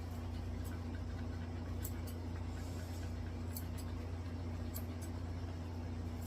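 Electric dog clippers running with a steady low hum, with a few faint sharp ticks scattered through it.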